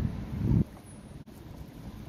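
Wind buffeting the microphone in heavy low rumbles for about the first half-second, then cutting away to a much quieter, even background noise.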